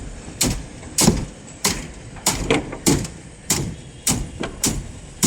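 Repeated hammer blows on a construction site, evenly paced at about one strike every 0.6 seconds.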